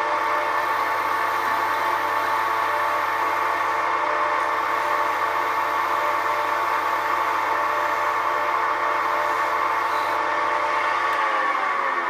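Record CL1 wood lathe running steadily, a whine of several pitched tones, while a parting tool cuts into the spinning teak stock. Near the end the motor is switched off and the whine falls in pitch as the lathe spins down.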